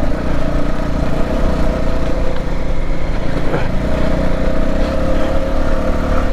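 Bajaj Pulsar 220F motorcycle's single-cylinder engine running steadily at low revs.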